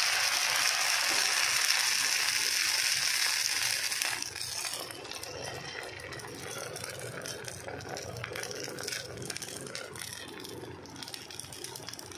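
Rice-and-urad-dal batter sizzling in hot oil in a clay kadhai just after it is poured in. It is a loud hiss for about the first four seconds, then settles to a quieter, steady crackle.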